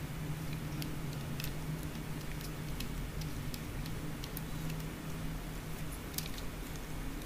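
Faint scattered clicks and taps of gloved hands handling a Samsung Galaxy S5 smartphone's frame, over a steady low hum.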